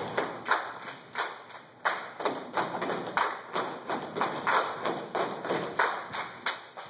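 A step team stepping: a group's foot stomps and hand claps struck together in a rhythm of about two to three hits a second, each hit ringing briefly in the hall.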